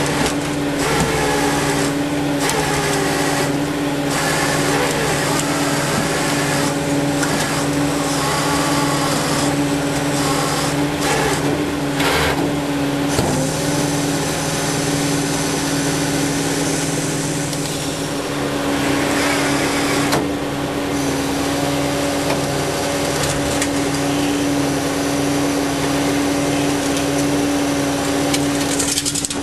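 Tow truck running steadily with a constant whine, with scattered knocks over it.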